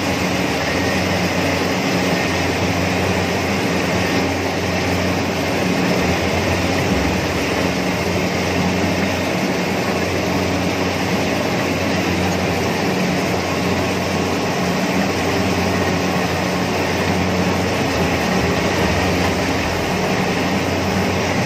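Rice combine harvester running steadily while cutting and feeding ripe rice, heard from the operator's seat: an even engine hum under the dense noise of the cutting and threshing machinery.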